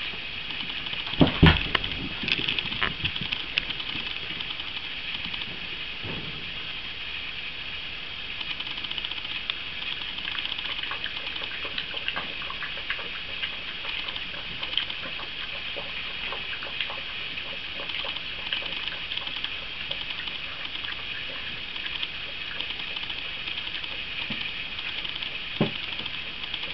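Staffordshire bull terrier puppies and their mother playing on a rug: scattered small clicks and scuffles over a steady hiss. There is a loud thump about a second in and a sharper knock near the end.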